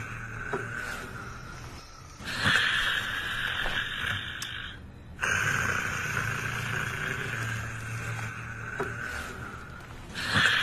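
A person snoring heavily. Loud, harsh breaths start abruptly about two seconds in, again just after five seconds, and once more near the end, each fading away before the next.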